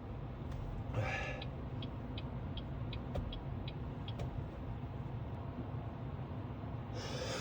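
Steady low road and engine rumble inside a moving car's cabin. A sniff or breath comes about a second in, then a run of faint, even ticks about three a second for a few seconds. Near the end a breath is drawn in as the lead-up to a sneeze.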